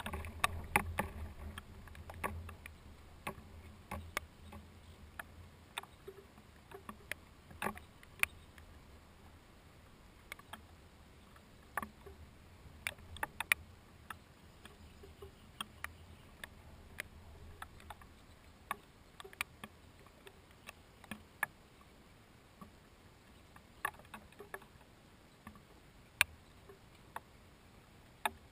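Low rumble of distant thunder dying away over the first several seconds, with scattered sharp ticks of raindrops hitting the GoPro Hero HD's housing, one or two a second.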